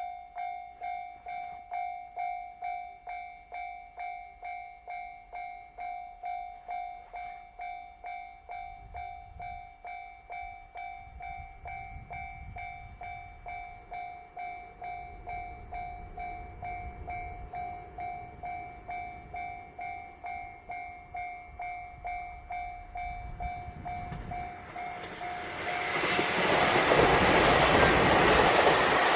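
Japanese level-crossing warning bell ringing steadily at about two strikes a second while the rumble of an approaching JR Hokkaido KiHa 261 series diesel express builds. About 26 s in, the train reaches the crossing and its loud passing noise drowns out the bell.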